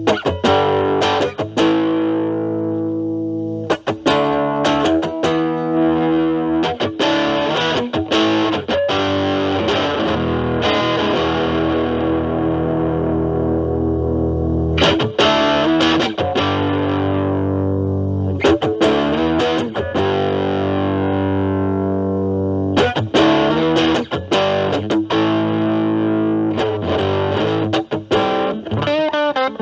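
Electric guitar, a Stratocaster with alnico single-coil pickups, played through an Ibanez Super Metal mini distortion pedal into a Marshall Valvestate amp's clean channel, with the distortion cleaned up to a lighter crunch. Chords are struck and left to ring for a few seconds, with quicker picked and strummed passages between them.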